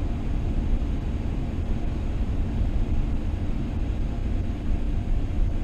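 Steady low rumble of a vehicle driving on the road, engine and tyre noise heard from inside the cabin.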